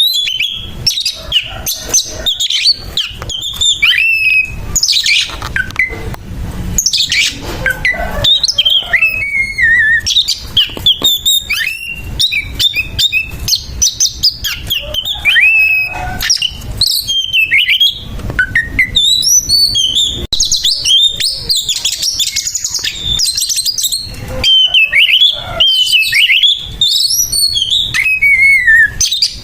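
Oriental magpie-robin (kacer) singing loudly and without pause: a fast, varied run of sliding whistles mixed with harsh, rasping notes. This is the aggressive 'fighting' song a male gives against a rival.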